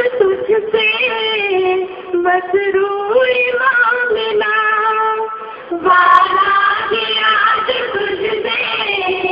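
Women singing a tarana, a devotional song: one melody line of held and sliding notes, with a short break just before the second half.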